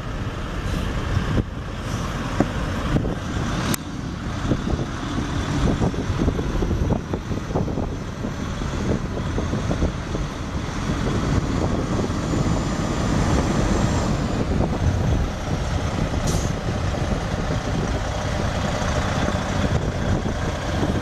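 Freightliner Columbia semi truck's Detroit Diesel Series 60 14.0L inline-six turbo diesel running steadily, with a few sharp clicks in the first four seconds.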